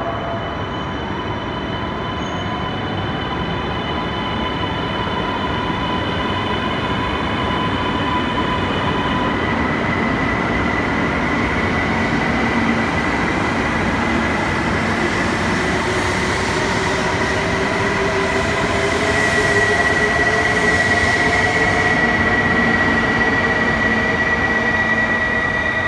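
E2-series Shinkansen train running out of the platform and gathering speed, a continuous rumble of wheels on rail. A high steady whine runs through it, changing pitch about ten seconds in and growing stronger later. A lower hum slowly rises in pitch as the train speeds up.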